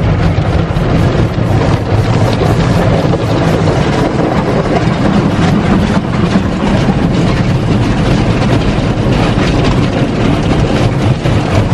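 Automatic car wash heard from inside the car's cabin: water spray and cloth brushes beating on the windshield and body, a loud steady wash of noise over a deep rumble.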